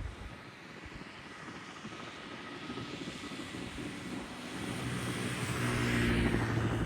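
Aircraft flying past, its engine noise growing steadily louder and peaking about six seconds in, with a steady low engine hum coming up in the second half.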